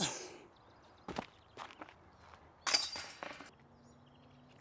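A disc golf disc strikes a metal chain basket, a bright metallic clatter of chains and cage lasting under a second, with a few sharp knocks before it. The putt does not go in.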